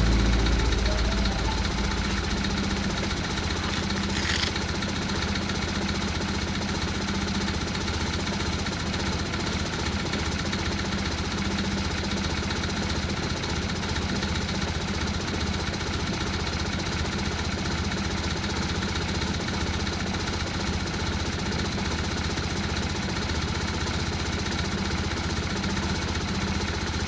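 BMW R1150R's boxer twin engine idling, easing down over the first couple of seconds and then running at a steady, even idle.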